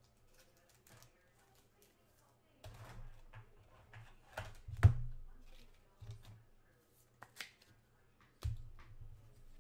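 Trading cards being handled and sorted on a tabletop: scattered light clicks and taps of cards and stacks, with a sharper knock about five seconds in.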